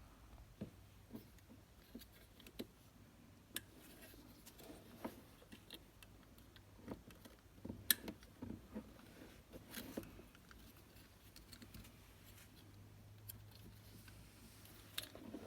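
Faint, scattered clicks and light taps of plastic door-lock bezel parts being handled and worked loose, with one sharper click about eight seconds in.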